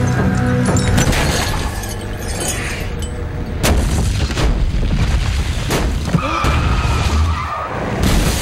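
Action-movie crash sound effects: heavy booms and sharp impacts over a low rumble, the hardest hits about a second in, midway and near the end. Music fades out early on. A steady high squeal-like tone sounds briefly near the end.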